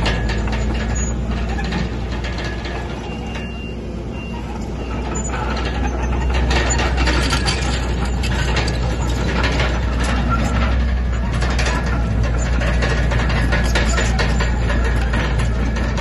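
Komatsu bulldozer's heavy diesel engine running under work, with steady low rumble and a run of metallic clanks and clatter from the tracks and blade. It eases off a little about three seconds in, then pulls louder again from about five seconds in.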